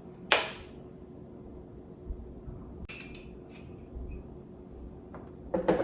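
Cocktail bar tools handled: one sharp clink with a short ring about a third of a second in, then a lighter tap a few seconds later and a small cluster of knocks near the end, over a faint steady hum.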